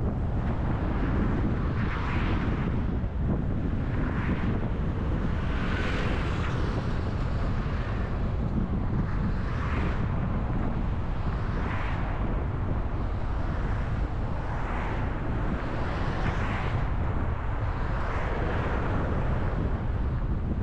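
Car on the move in traffic: steady low road and engine rumble, with tyre hiss that swells and fades every two seconds or so.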